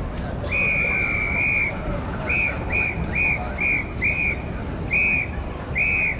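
A signal whistle blown as a command: one long blast, then about seven short blasts at the same high pitch, the last few more widely spaced, over a low hum of stadium crowd noise.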